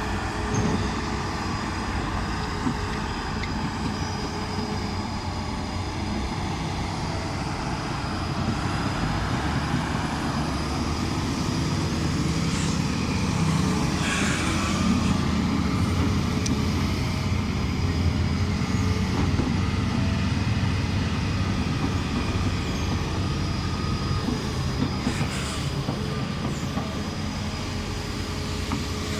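Heavy diesel earthmoving machinery running: excavators, bulldozers and dump trucks at work loading soil. Their engines make a steady drone that swells for several seconds in the middle.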